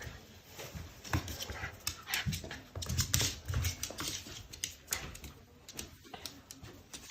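Mame shiba dog whining in excitement at its owner's return, with many scattered clicks and knocks.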